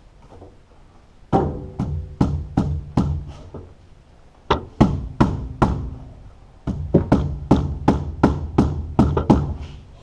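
Rubber mallet knocking on a skidsteer's air cleaner canister to force a new, stiff filter element to seat so the end cap will lock. About twenty sharp blows come in three bursts, the last one quickest at about three a second.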